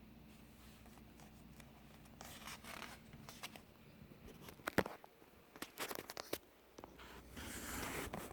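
Faint rustling and scraping of paper pages as a picture book is handled, with a sharp tap a little before the middle and a longer rustle near the end.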